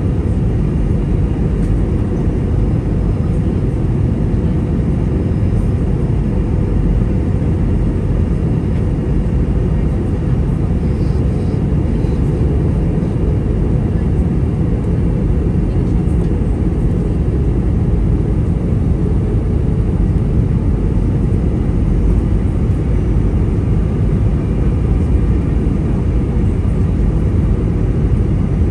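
Steady in-flight cabin noise of an Airbus A320: a deep, even rumble of jet engines and rushing air, heard from a seat inside the cabin.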